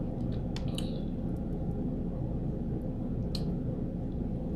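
Soft wet mouth clicks from eating, a few near the start and one more about three seconds in, over a steady low hum.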